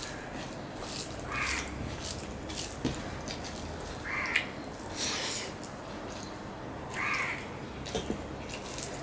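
Close-up eating sounds: fingers mixing rice with cooked greens on a steel plate, and soft clicks and smacks of chewing. A crow caws three times, about three seconds apart.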